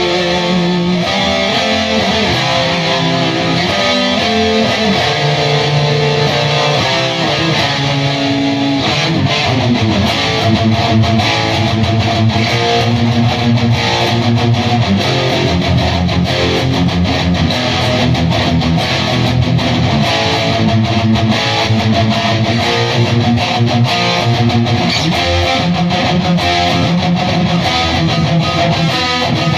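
Electric guitar played through a Bugera 333XL valve amp head on its stock tubes into a Mesa speaker cabinet: continuous riffing, with chords and single-note lines that change throughout.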